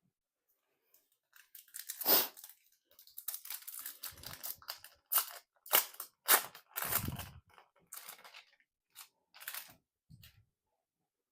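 A Magic: The Gathering booster pack wrapper being torn open and crinkled: a run of sharp crackling rustles, loudest about two seconds in and again around six to seven seconds.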